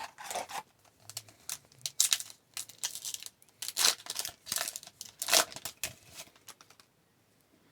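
A trading card pack's wrapper being torn open and crinkled, in a run of short rustling bursts.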